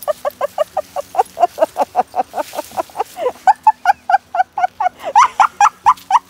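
Springer spaniel yipping excitedly while digging at a hole, short high yips in a steady run of about five a second, a little higher-pitched in the second half.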